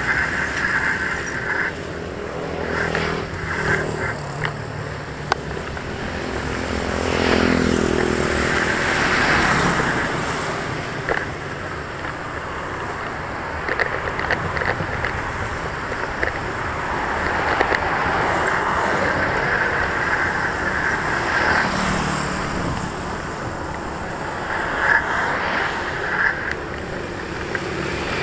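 Road traffic passing close by on the bridge roadway: engine and tyre noise from cars, a small truck and motorcycles, with one vehicle going by with a falling pitch about eight seconds in.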